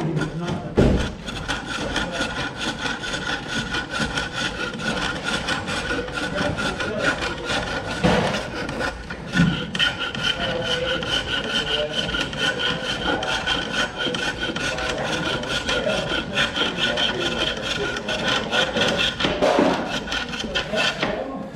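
Turning tool cutting wood on a spring pole lathe: a continuous scraping, shaving sound with a fast, fine texture, broken by a few knocks.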